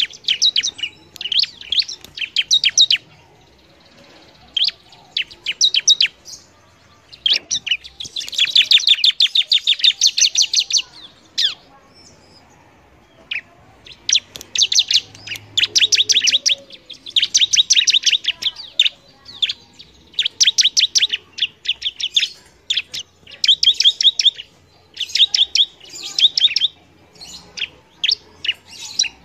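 Ciblek (bar-winged prinia) singing vigorously: fast trains of high, sharp repeated notes lasting one to three seconds each, broken by short pauses.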